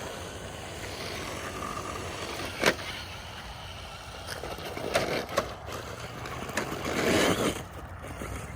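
Traxxas TRX-4 radio-controlled crawler truck driving on hard ground, its tyres grinding against the body shell, with a steady rolling scrape and a few sharp knocks, the loudest about two and a half seconds in and a louder scraping stretch near the end.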